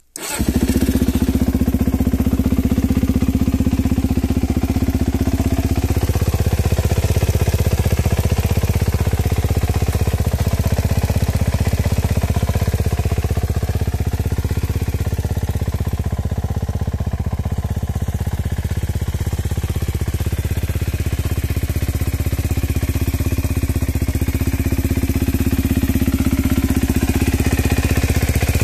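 Suzuki DRZ400E's single-cylinder four-stroke engine, breathing through a full Rino Racing aftermarket exhaust, catches right at the start and then idles steadily.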